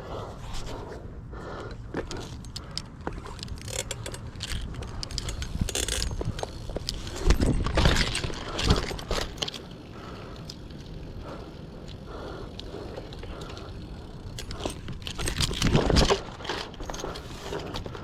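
Bicycle being ridden, its parts rattling and clicking throughout, with two louder rushes of noise about seven to nine seconds in and again around fifteen to sixteen seconds.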